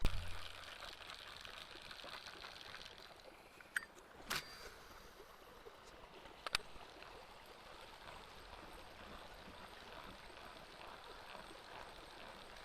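Faint trickle of flowing creek water, with a low thump at the very start and a few short sharp clicks about four and six and a half seconds in.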